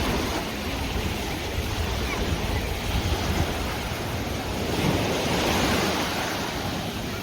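Sea waves washing and splashing, swelling louder for a moment past the middle, with wind buffeting the microphone.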